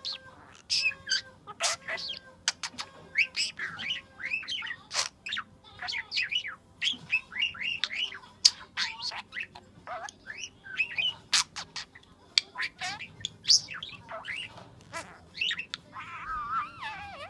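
Pet budgerigar and cockatiels chirping and squawking in a rapid, unbroken string of short calls, with a few sharp clicks, and a wavering warble near the end.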